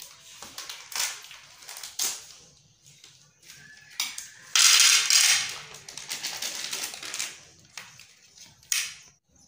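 Plastic candy wrappers crinkling and tearing, and small sugar-coated chocolate buttons rattling out of their packet onto a plate, with a loud rustling burst of about a second midway and a few sharp clicks around it.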